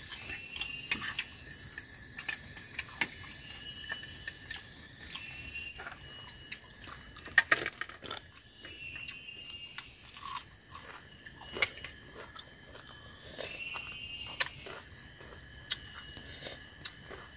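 Forest insects calling: a steady high whine that stops about six seconds in, over short repeated chirps and a thin very high tone. A few sharp clicks and taps stand out over it.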